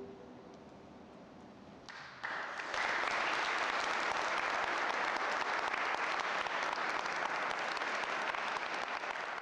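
A choir's last chord dies away, then about two seconds in an audience starts applauding, quickly swelling to full, steady applause.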